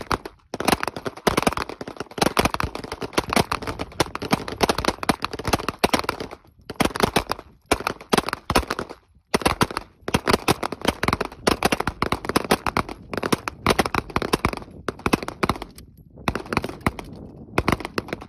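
Several M17 9mm pistols firing rapidly at once, shots overlapping into a dense crackle of gunfire. There are brief lulls about six to nine seconds in, and the firing thins out near the end.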